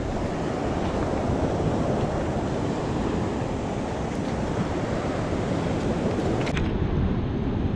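Wind buffeting the microphone over a steady wash of sea surf.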